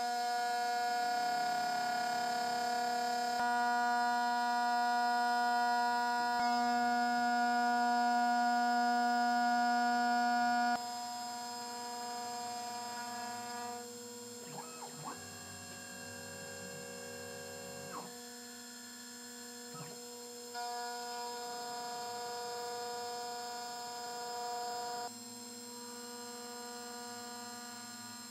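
CNC milling machine's motors whining while aluminium parts are milled, with steady tones that jump to a new pitch every few seconds as the moves change. There are brief rising and falling glides about midway, and the first ten seconds are louder.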